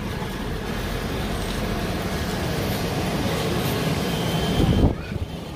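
Metal shopping cart rolling and rattling as it is pushed, a steady clatter that cuts off suddenly near the end.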